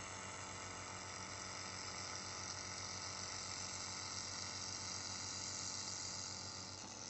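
2000 W handheld laser welder with wire feeder running a vertical weld on 6 mm mild steel: a steady hiss of the weld and spatter, with a low machine hum underneath.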